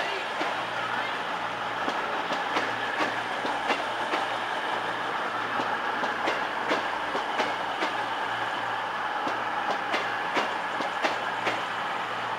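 CrossCountry Class 221 Super Voyager diesel unit pulling into the platform: its engines run steadily while the wheels click unevenly over rail joints and points.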